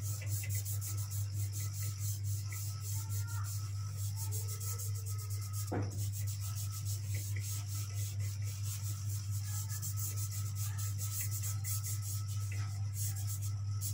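A hand rubbing soft pastel into drawing paper to blend the colour: quick back-and-forth strokes with a dry, rasping swish. A steady low hum runs underneath.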